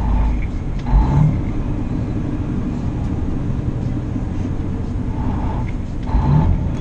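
Semi-truck cab interior while driving: the engine and tyres rumble steadily, with a couple of heavier thumps, about a second in and again near the end.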